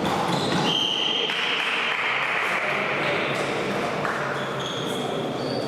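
Sports shoes squeaking on an indoor court floor during play. There is a short high squeak about a second in and a few more near the end, over the general noise of the hall.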